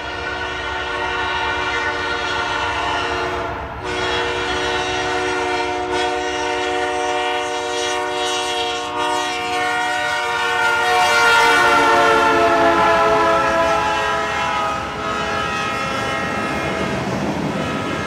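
Freight locomotive's multi-tone air horn sounding long blasts, broken briefly about four seconds in. Around eleven seconds in the chord slides down in pitch as the locomotive passes, and the rumble of the train rolling on the rails grows beneath it.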